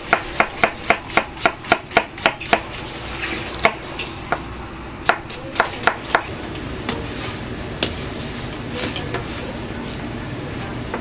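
Kitchen knife chopping an onion on a wooden cutting board: quick, even strokes about four a second, thinning to scattered cuts after about two and a half seconds. About six seconds in the cutting stops and a steady hiss of a gas burner and boiling water carries on.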